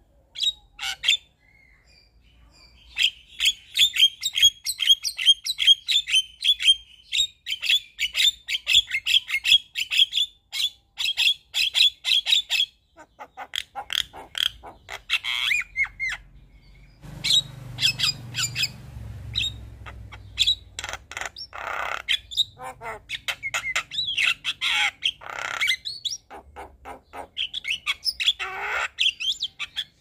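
Javan myna singing in full voice, a fast varied song of rapid runs of chirps mixed with harsh squawking notes.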